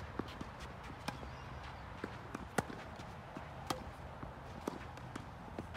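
Tennis rally: sharp pops of the ball off racquet strings and its bounces on the court, with the players' quick footsteps in between. The two loudest pops come about two and a half and three and a half seconds in.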